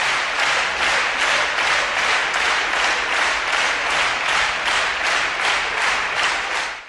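Large concert-hall audience applauding, the clapping falling into a regular beat of about three claps a second. It cuts off suddenly right at the end.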